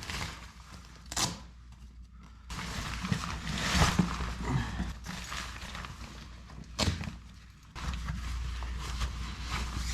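Footsteps and handling noises, with two sharp knocks: one about a second in and one near seven seconds in.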